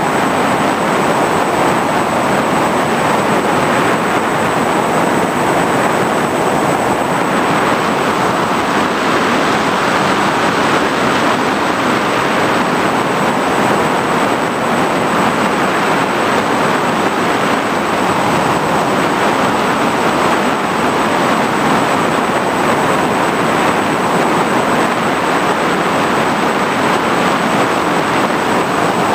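FPV drone's electric motors and propellers running steadily in flight, a loud even rush with a thin high whine over it, as picked up by the camera riding on the drone.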